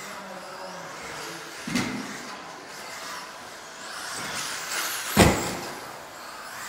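Radio-controlled off-road cars running on an indoor carpet track: high motor whines rising and falling as the cars go by. A sharp clack about five seconds in, the loudest thing heard, with a smaller one near two seconds.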